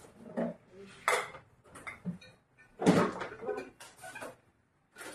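Dishes and kitchenware clinking and knocking together as they are handled and packed away: a run of separate short clatters, the loudest about three seconds in.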